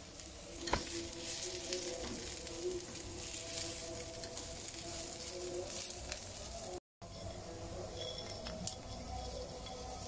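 Onions and garlic sizzling in a frying pan while a wooden spatula stirs them, with scattered scrapes and knocks of the spatula against the pan; a sharp knock comes under a second in. The sound cuts out briefly near seven seconds in.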